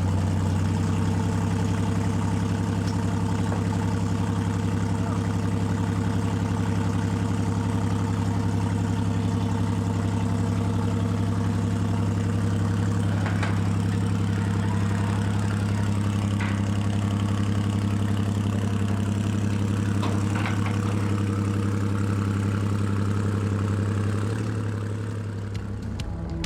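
Off-road race car's engine idling steadily, with a few faint clicks in the middle; the sound fades out near the end.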